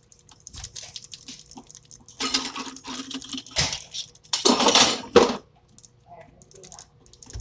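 Glass and dishes clinking as they are handled on a kitchen counter, mixed with water sounds. There are two louder noisy stretches of about a second each, around two and four and a half seconds in.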